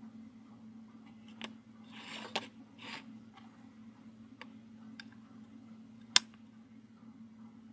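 Small plastic-and-metal clicks and rustles as a circuit board stack is handled, then one sharp click about six seconds in as a USB-B plug is pushed into the Arduino's socket. A steady low hum runs underneath.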